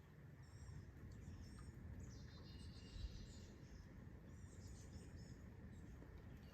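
Near silence, with faint high bird chirps and short calls coming and going over a low hum.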